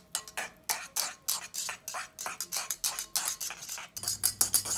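Metal balloon whisk beating a wet yogurt-and-oil mixture in a ceramic bowl: quick rhythmic scraping and clicking strokes against the bowl, about five a second, a little faster near the end.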